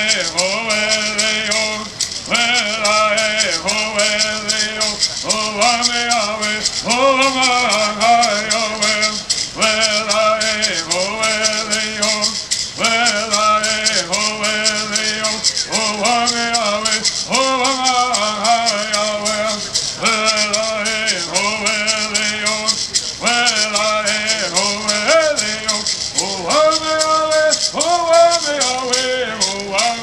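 Kumeyaay bird songs: a group of singers chanting in unison in short repeated phrases, over gourd rattles shaken in a steady fast rhythm.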